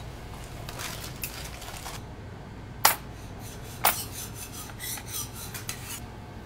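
Metal spoon on a ceramic dessert plate: two sharp clinks about a second apart, then a run of short scrapes as it digs through ice cream on the plate.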